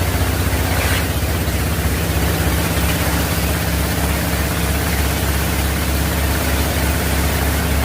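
Wood chipper running steadily, its engine giving a constant low hum under a broad rushing noise.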